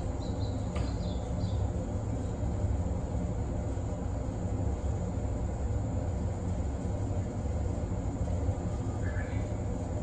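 A stationary JR 189 series electric train humming steadily with its onboard auxiliary machinery running, a constant low drone. A few faint high chirps come near the start and near the end.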